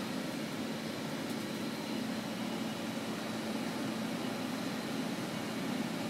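American Standard air handler running, a steady rush of blower air with a constant low hum and a faint high whine.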